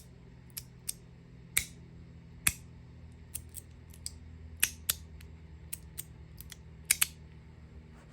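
Magnetic haptic slider fidget being clicked by hand: irregular sharp metallic clicks as the magnets snap the slider between positions, some much louder than others, with a quick loud double click near the end.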